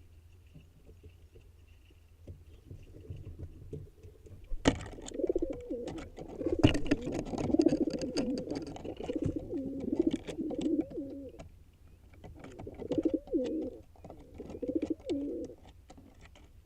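Low, pulsing cooing bird calls in several phrases, starting about five seconds in, with a few sharp clicks and knocks among them, the loudest near the start.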